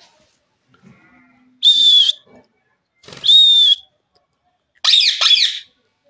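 Rose-ringed parakeet calling: two loud, shrill whistled screeches about a second and a half apart, then a quick burst of harsh, falling chattering notes near the end.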